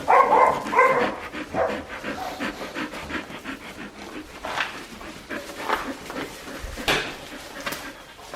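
Four-week-old Australian Shepherd puppies: short high whines in the first second or so, then a run of quick, even little noises, with a few sharp knocks later on.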